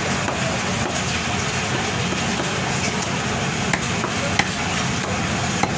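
Knife scraping the scales off a large katla carp on a wooden chopping block: a steady rasping, with a few sharp clicks in the second half.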